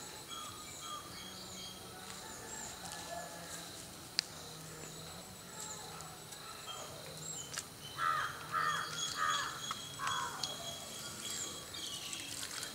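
Outdoor garden ambience: small birds chirp throughout, and a crow caws four or five times about eight to ten seconds in. Near the end, water splashes onto stone as it is poured from a steel pot.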